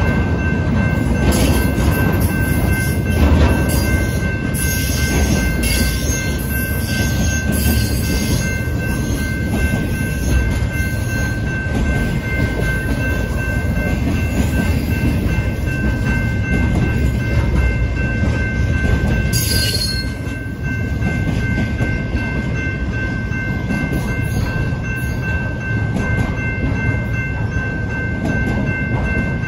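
BNSF intermodal freight train, flatcars loaded with highway trailers, rolling through a grade crossing: a steady rumble of steel wheels on rail, with steady high-pitched tones held over it throughout.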